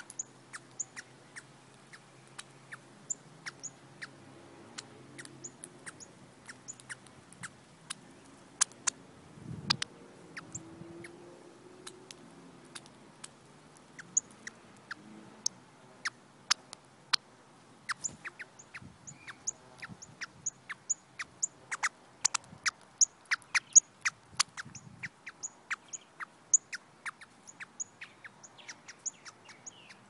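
Female northern cardinal pecking and cracking birdseed on a hard concrete ledge close to the microphone: a run of sharp, irregular clicks that come faster in the second half, with short high chips between them. A brief low rumble comes about ten seconds in.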